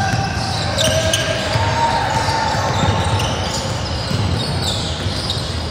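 Basketball game sound: a ball bouncing on the court under background voices of players and spectators, with a few short high squeaks.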